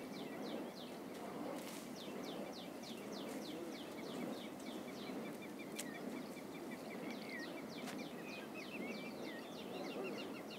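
A bird singing a rapid series of short, high chirps, each sweeping downward in pitch, several a second without a break, over a steady outdoor background hiss.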